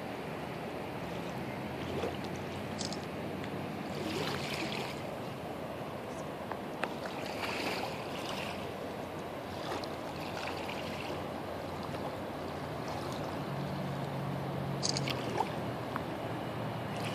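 Steady rush of the flooded North Saskatchewan River flowing past submerged brush, with a few brief higher-pitched sounds over it.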